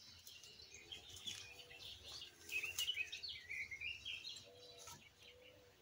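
Birds chirping and calling, faint, with the busiest calling from about two and a half to four seconds in.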